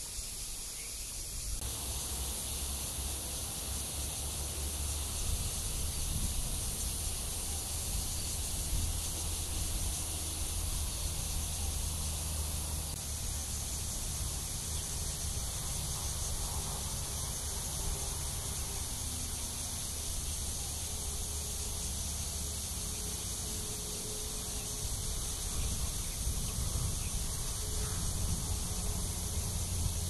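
Cicadas droning in a continuous, steady high-pitched hiss, over a low rumble.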